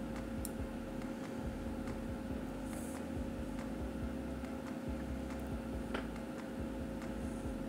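Steady low electrical hum with a faint hiss, broken by a couple of faint clicks.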